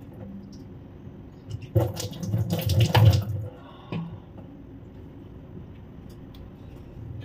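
Water splashing at a kitchen sink as a face is rinsed by hand, in a loud burst from about two to three seconds in. A single knock follows about four seconds in.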